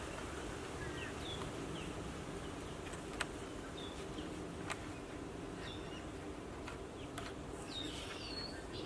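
Outdoor ambience of small birds chirping in short high calls over a steady hiss of wind and background noise, with a few sharp clicks.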